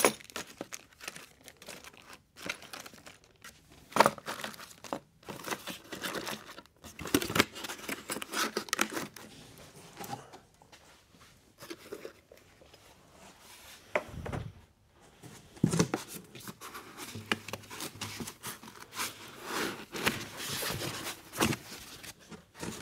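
Unboxing handling noise: plastic hardware bags crinkling, a cardboard accessory box being set back in the carton, and sheets of polyethylene foam packing rustling as they are lifted out. Irregular rustles come with a few sharp knocks.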